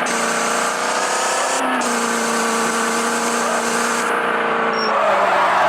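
Modified Maruti Eeco van's engine held at high revs, its pitch stepping up slightly about a second and a half in, then holding steady before dropping near the end.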